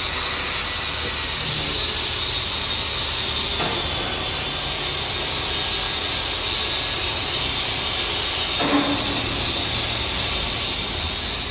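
Workshop machinery running steadily with a high whine, with two sharp metallic knocks, the first about a third of the way in and the second about two-thirds through.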